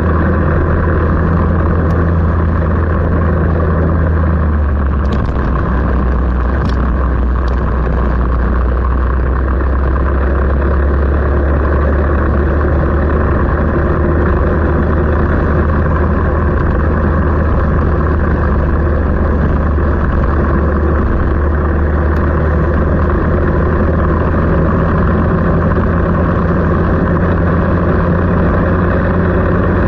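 A vehicle engine running steadily at an unchanging pitch, with no revving.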